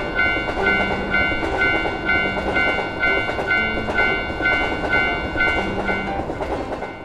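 Japanese railroad crossing warning bell ringing its "kan-kan", struck about twice a second, while a train runs past with a loud, steady rumble.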